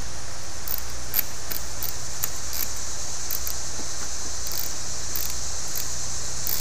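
Small, irregular metallic clicks and taps of a hand wrench as an ATV battery hold-down bracket is fastened, over a steady high-pitched insect drone.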